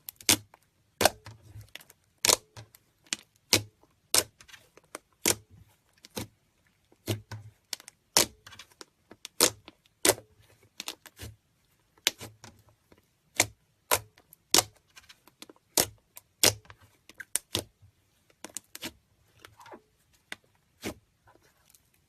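Slime being squeezed and pressed by hand, making sharp, irregular clicking pops (trapped air bubbles bursting), about one or two a second, with soft low thuds.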